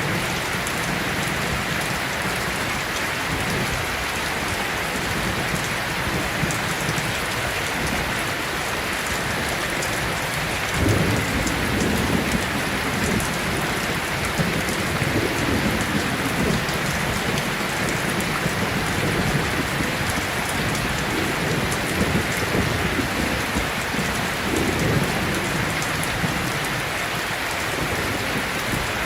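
Steady, continuous rain with low rumbles of thunder rolling in now and then, the strongest starting a little over a third of the way in.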